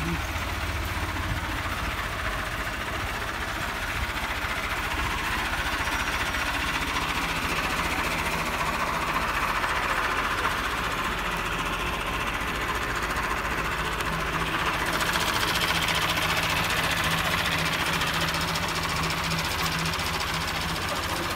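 Diesel tractor engine running steadily, with a fast, even knocking beat.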